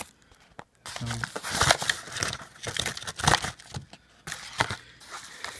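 Clear plastic coin flips and a mailer envelope crinkling and rustling in an irregular run as the coins are pulled out of the envelope, starting about a second in.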